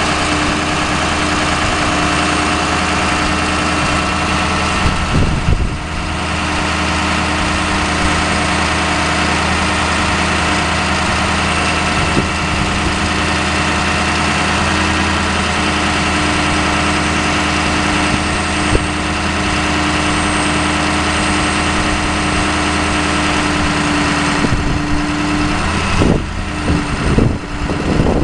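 2004 Ford F-550's 6.0L V8 diesel engine running steadily, driving the PTO hydraulics while the Altec boom is raised and extended. A steady hum sits over the engine note and dips briefly about six seconds in and again near the end.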